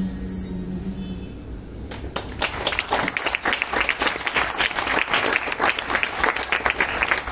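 The song's last held note fades out, then an audience breaks into applause about two seconds in, clapping steadily after that.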